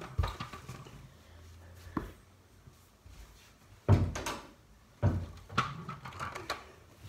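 A few dull thumps and knocks, the two loudest about four and five seconds in, with a faint low rumble between them.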